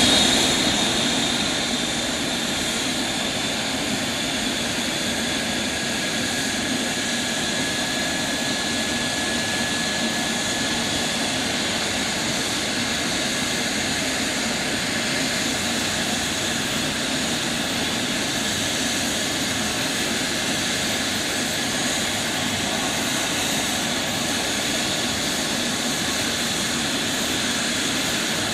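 Eurocopter EC135 air ambulance helicopter running on the ground after a cold start, its twin turboshaft engines and turning rotor making a steady whine and rush of noise. A thin higher whistle sounds for a few seconds early on.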